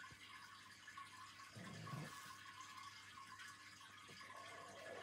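Near silence with a faint steady hiss; a sleeping pug gives one soft, low snore about two seconds in.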